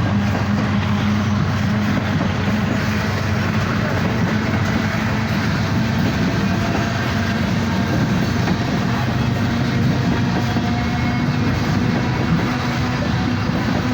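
Loaded coal train rolling by, with steady wheel and rail noise that does not let up.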